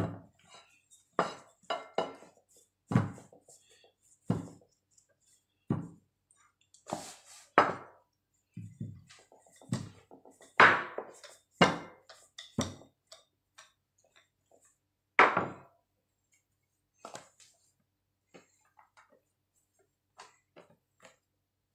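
Irregular knocks and clinks of a wooden rolling pin against a plastic pastry board as puff pastry dough is rolled out, thinning out to a few faint taps after about two thirds of the way through.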